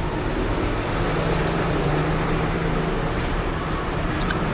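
Steady road-traffic noise, with a low engine hum from a vehicle that comes in about a second in and fades after a couple of seconds.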